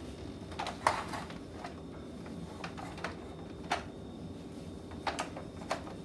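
Irregular light plastic clicks and knocks from a toy Dyson vacuum cleaner being handled as its dust bin is emptied.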